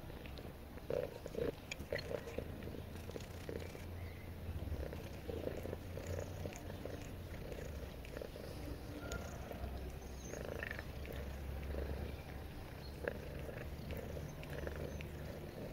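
Domestic cat purring steadily in a low, continuous rumble while it grooms itself, with small soft licking clicks on top.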